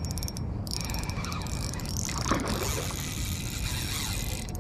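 Lew's spinning reel clicking and whirring rapidly as a hooked redfish is fought on the line, with a brief break near the start.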